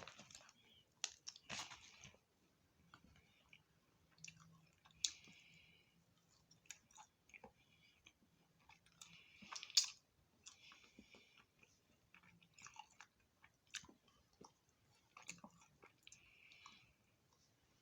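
A person chewing and biting fried food (chicken and seasoned fries) close to the microphone, with many small mouth clicks and short crunches.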